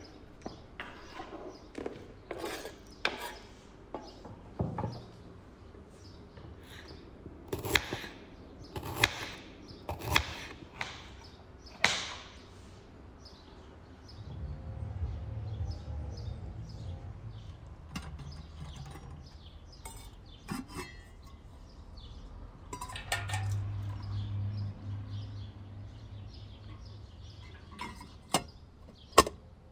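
Kitchen prep handling: a string of sharp knocks and clicks from a knife and food on a wooden cutting board and bowls, then two stretches of soft low rumbling. Near the end come a few sharp metallic clinks as the metal parts of a samovar are fitted together.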